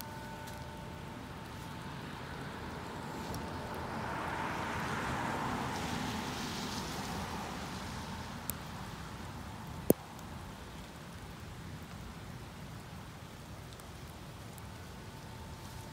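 Steady rain hissing, with a broader whoosh that swells and fades about four to eight seconds in. Two sharp taps come in the middle, the second much louder.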